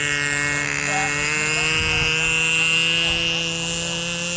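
Model autogyro's motor and propeller buzzing steadily, its pitch rising slowly.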